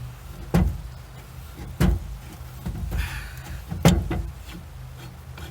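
Three sharp metallic clunks, about a second or two apart, with a brief scrape between the second and third, from the aluminium halves of a chainsaw crankcase and the case-splitter tool being handled as the case comes apart. A low steady hum runs underneath.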